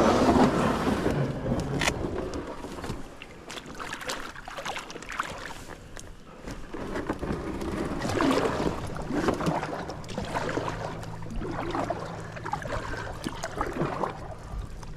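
A canoe on the water in wind: water swishing and lapping around the hull in uneven swells, with wind buffeting the microphone and a few sharp knocks.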